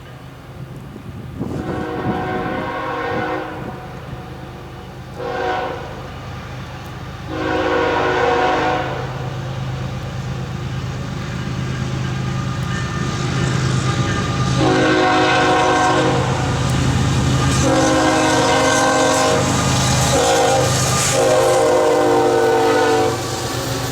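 Air horn of a Norfolk Southern ES44AC diesel locomotive leading a double-stack intermodal train, sounding for a crossing as the train approaches at speed: a long blast, a short one, another long one, then a long drawn-out blast with a few brief breaks. Under it the diesel rumble of the oncoming train grows louder.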